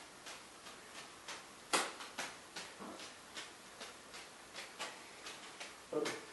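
Juggling balls slapping into the hands in a steady rhythm, about three catches a second, with two louder slaps about two seconds in and near the end.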